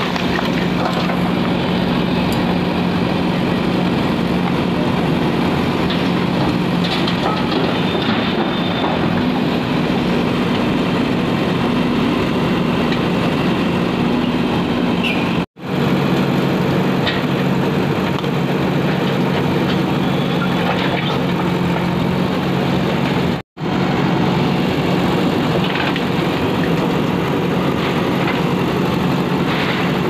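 JCB backhoe loader's diesel engine running steadily as the backhoe digs through brick and concrete rubble, with faint knocks from the rubble. The sound cuts out for an instant twice.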